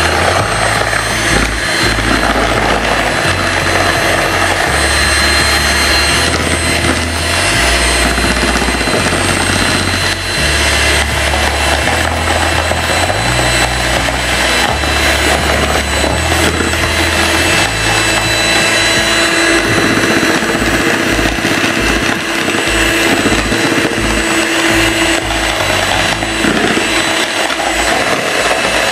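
Electric hand mixer running steadily, its twin beaters whipping eggs and sugar into a thick, pale sponge-cake foam. Background music with a stepping bass line sits underneath until about two-thirds of the way through.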